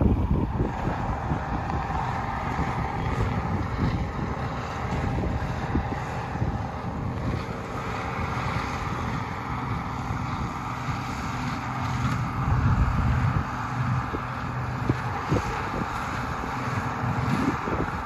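International Harvester 956 XL tractor's diesel engine running steadily under load as it pulls a New Holland baler through the hay, with wind rumbling on the microphone.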